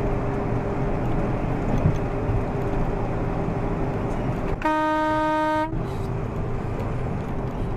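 Steady road and engine noise inside a semi-truck's cab, then about four and a half seconds in a single horn blast lasting about a second at one steady pitch, the truck honking at a sedan cutting across in front of it.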